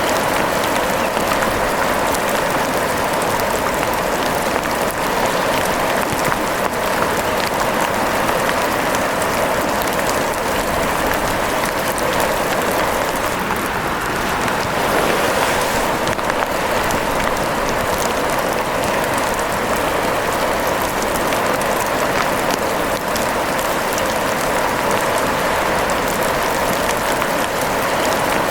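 Steady rain falling: an even hiss with many small ticks of drops, unchanging throughout.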